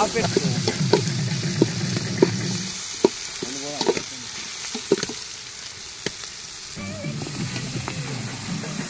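Onions and tomatoes sizzling in oil in a metal pot over a wood fire, with a ladle stirring and scraping, giving frequent sharp clicks against the pot.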